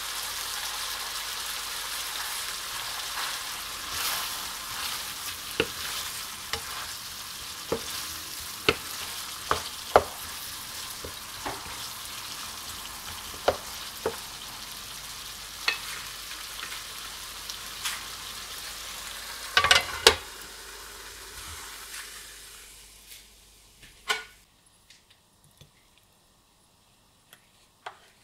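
Chicken curry sizzling in a pan as a wooden spatula stirs it, knocking against the pan now and then, with two sharp knocks about two-thirds of the way through. The sizzle dies away a few seconds before the end.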